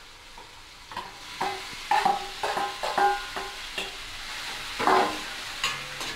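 Metal utensils knocking and scraping against an aluminium kadai as cooked ivy gourd and chana dal are tipped in from a steel bowl and stirred with a ladle: a dozen or so irregular clanks, several leaving a brief metallic ring, the loudest about five seconds in.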